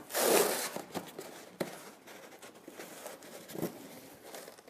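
Cardboard box being handled: a loud scraping rustle of cardboard in the first second, then a few light knocks and quieter rustling as the box is tipped and lifted.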